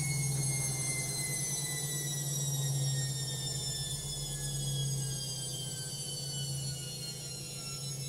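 LOGIK front-loading washing machine on its spin cycle: a steady low hum from the drum with a high motor whine that falls slowly in pitch as the spin slows.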